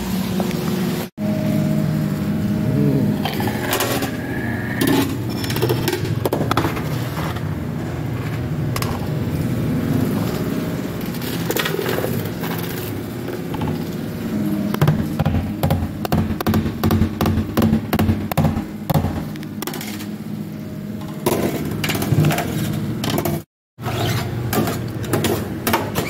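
Commercial kitchen dish-pit work: dishes, pans and racks clattering, knocking and scraping over a steady machine hum. The sound drops out to silence for a moment about a second in and again near the end.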